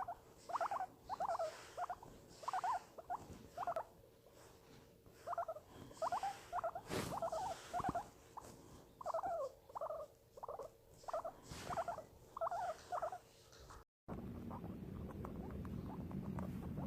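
Guinea pig squeaking in short pitched calls, repeated in quick clusters of two or three. Near the end it gives way to a busy patter of small clicks and rustling.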